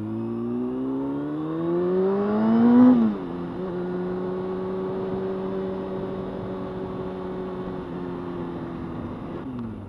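Honda CBR600F4i sportbike's inline-four engine pulling through a gear, its pitch rising to its loudest about three seconds in, then dropping sharply as it shifts up. It then runs at a steady cruising pitch, with another brief dip in pitch near the end.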